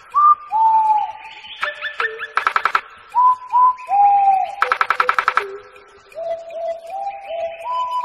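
Several captive birds calling: short clear whistled notes, some sliding down in pitch, overlapping one another, with two quick rattling trains of rapid clicks about two and a half and five seconds in.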